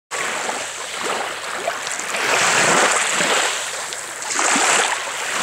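Small waves washing in over a pebbly shore, the rush of water swelling and easing about every two seconds as each wave breaks.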